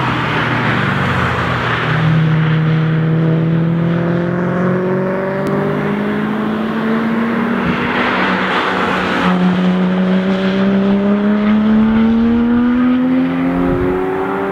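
Two sports cars accelerating past one after the other out of a corner, each engine climbing steadily in pitch as it pulls away, over tyre noise. The second and louder is a Porsche 911 GT3's flat-six, coming through about halfway in.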